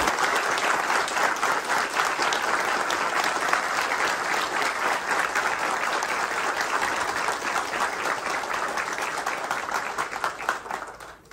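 A large crowd applauding steadily, the clapping fading out near the end.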